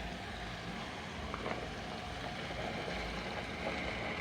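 Steady sizzling of spices and tomato paste frying in a pot, with a couple of faint clicks about a second and a half in.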